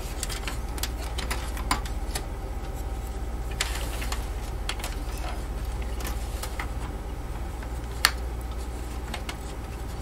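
Small clicks and rattles of a SATA power cable and its connector being handled and pushed into a drive inside a steel computer chassis, with one sharp click about eight seconds in, over a steady low hum.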